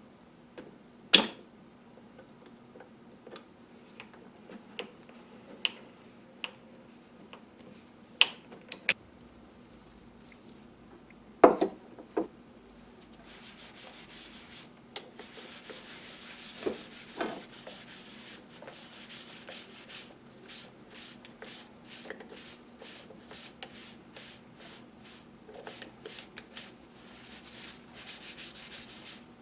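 A cloth rag rubbed in quick back-and-forth strokes over the wooden mid handle of a vintage brace drill, working in a coat of boiled linseed oil; the rubbing starts about 13 seconds in and keeps on. Before it, a few sharp knocks as a screwdriver works on the brace's metal head.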